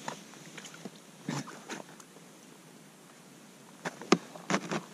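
A few short knocks and rustles from an ice angler handling his winter rod and clothing while jigging. The sharpest and densest cluster comes about four seconds in, as he strikes at a bite.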